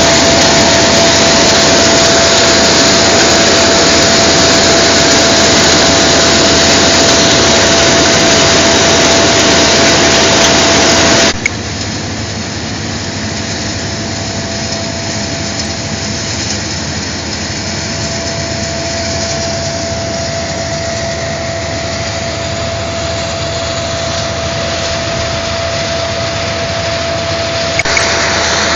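Coffee-cleaning machinery and the diesel engine of a Massey Ferguson 265 tractor running steadily, with a constant hum. About eleven seconds in the sound drops abruptly to a lower level, and it rises again just before the end.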